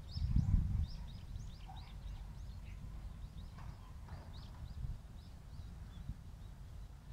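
Small birds chirping, many short high calls scattered throughout, over a low rumble that is loudest in the first second.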